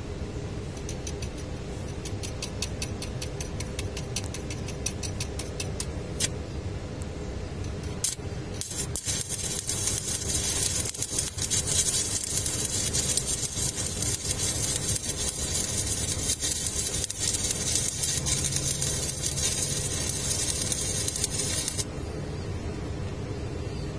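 Electric arc welding on a cracked forklift tilt-cylinder mount: a run of short rapid ticks in the first few seconds, then the arc crackles and sizzles steadily from about nine seconds in and cuts off a couple of seconds before the end.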